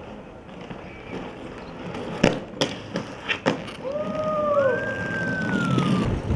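Skateboard on stone paving: the wheels rolling, with four sharp clacks of the board between about two and three and a half seconds in. They are followed by a few short high tones that rise and fall, the last one longer and sliding down. The rolling rumble grows louder near the end.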